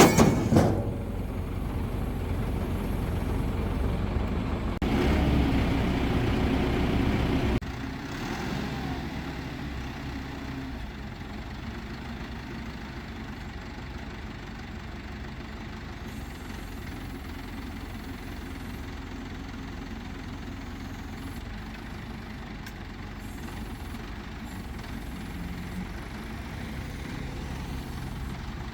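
A crane's engine running with a steady low rumble, a little louder from about five seconds in, then dropping suddenly about seven and a half seconds in to a quieter steady idle. A sharp knock comes right at the start.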